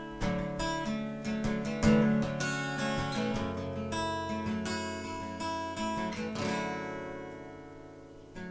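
Acoustic guitar strumming chords in a song's intro. Near the end, a chord is left ringing and fades away.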